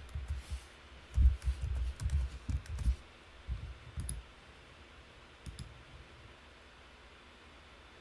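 Typing on a computer keyboard: a quick run of key clicks with dull thumps over the first three seconds, then a few single clicks.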